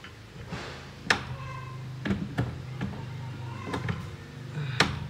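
Sharp clicks and knocks of parts being handled inside a washing machine cabinet, about five over a few seconds, the first and last loudest, over a steady low hum.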